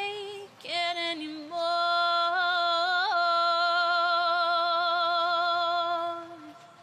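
Female voice singing unaccompanied: a few short notes, then one long held note with vibrato for about five seconds that fades out near the end.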